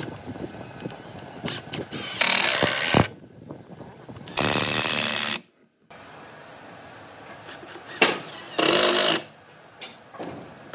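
Cordless drill driving screws into wood in three short runs of about a second each, with handling clatter between them.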